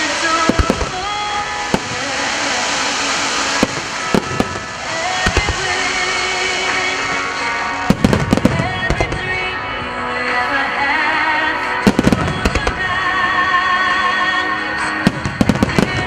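Starmine fireworks barrage: shells bursting in volleys over music synchronised with the display, with dense clusters of rapid bangs about eight and twelve seconds in and a quick string of them near the end.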